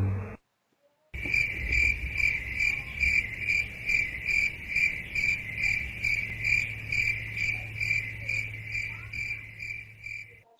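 Crickets chirping in a steady rhythm, about three chirps a second. It starts about a second in and stops just before the end. A descending brass note ends at the very start.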